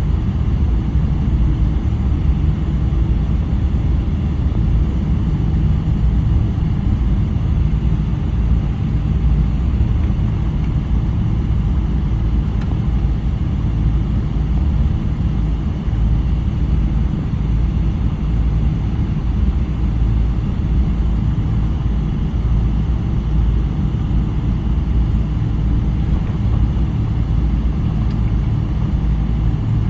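Steady low rumble in the passenger cabin of a Boeing 777-300 with its Rolls-Royce Trent 800 engines running, even in level throughout with no spool-up or change.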